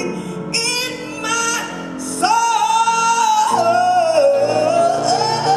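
A woman singing a gospel song with piano accompaniment. About two seconds in she rises to a high held note, then bends and ornaments it over sustained chords below.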